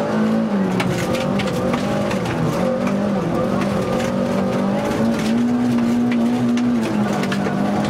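Opel Corsa FA6 rally car's engine heard from inside the cockpit, pulling hard at high revs on a gravel stage. Its note holds steady, climbs about five seconds in and drops back near the end, over a scatter of sharp clicks from gravel striking the car.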